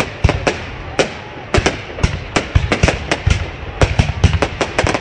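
Fireworks going off in a rapid, irregular run of sharp bangs and cracks. They come sparsely at first and thicken to several bangs a second after about two seconds.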